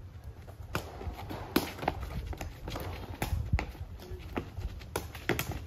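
A sepak takraw ball being kicked in a rally: a string of sharp, irregular smacks of foot on ball, with players' running footsteps on the concrete court in between.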